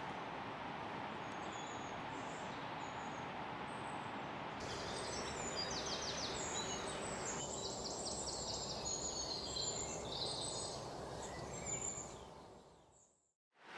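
Small birds chirping and trilling over a steady hiss of outdoor background noise; the sound fades to silence near the end.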